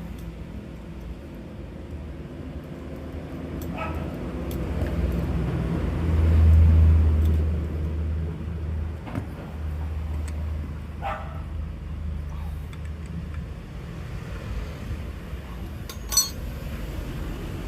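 A low engine rumble that swells about six seconds in and then eases off. A dog barks twice, and a sharp click comes near the end.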